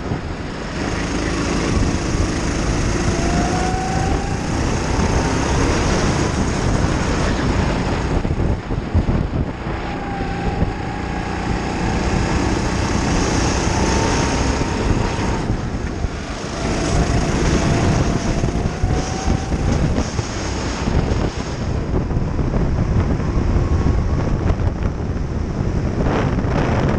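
Racing kart engine heard onboard at speed, its pitch rising and falling repeatedly as the driver accelerates out of corners and lifts for the next.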